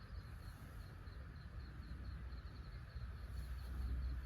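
Outdoor ambience: an insect chirps at a fast, even rate at a high pitch over a low, steady rumble.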